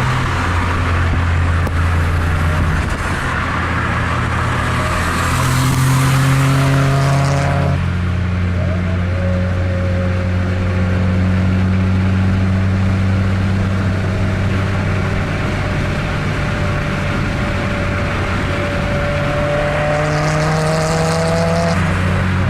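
Turbocharged 2.0-litre four-cylinder engine and exhaust of a 2003 Mazdaspeed Protegé, running steadily while the car rolls along, its pitch drifting slowly up and down.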